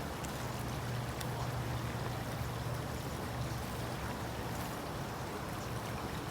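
Steady outdoor rushing noise with a constant low hum underneath.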